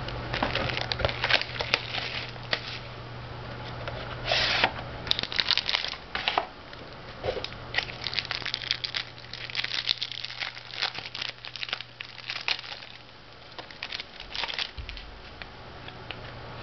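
Plastic shrink-wrap and foil-wrapped trading card packs crinkling and rustling in irregular bursts as a card box is unwrapped and its packs taken out.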